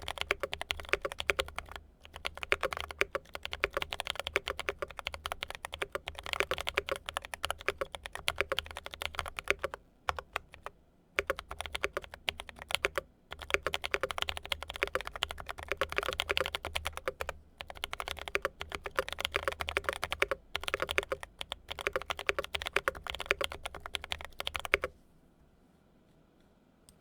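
Continuous fast typing on a custom 65% mechanical keyboard with lubed Drop Holy Panda tactile switches, GMK keycaps and plate and case foam. The keystrokes are dense and rapid, with brief pauses around 10 and 13 seconds in, and the typing stops about 25 seconds in.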